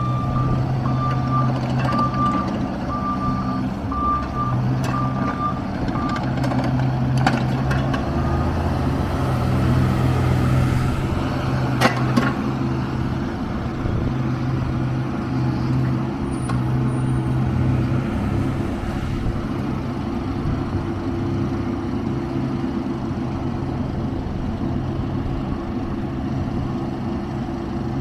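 Hitachi Zaxis 19U mini excavator's diesel engine running steadily, with a travel alarm beeping repeatedly for about the first six seconds. A couple of sharp knocks come partway through.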